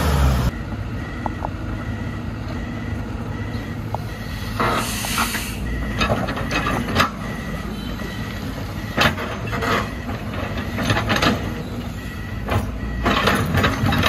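Hitachi crawler excavator's diesel engine running steadily as its bucket digs and scrapes through soil and broken concrete, with repeated clanks and clatter of rubble and a short hiss about five seconds in.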